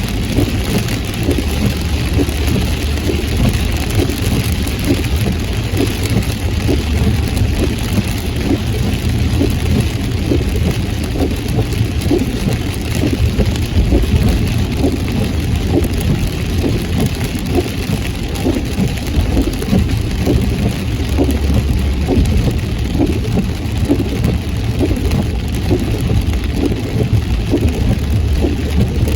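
A car driving in heavy rain: rain pattering densely on the car over a steady low rumble of road and engine noise.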